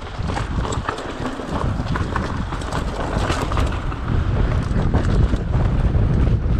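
Mountain bike descending a rough dirt singletrack at speed: wind rumbling on the microphone, with the rattle and clatter of the bike and its tyres over dirt, roots and rocks. It gets a little louder in the second half.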